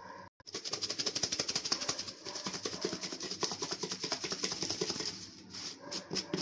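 Raw chicken pieces tumbling in flour inside a lidded plastic tub as it is shaken hard, to coat them in flour: a rapid, steady rattle that starts about half a second in and thins to a few knocks near the end.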